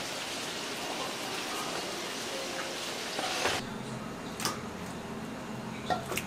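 Steady sizzling hiss of chicken deep-frying in oil, which cuts off suddenly about three and a half seconds in. Then raw chicken drumsticks are worked by hand in batter in a steel bowl, with a few short wet squelches and clicks.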